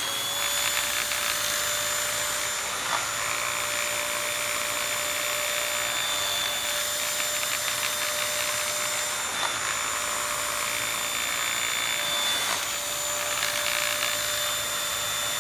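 Euleven UV handheld mattress vacuum cleaner running at a steady speed: a motor whine at one pitch over air rushing through it, with a few faint knocks.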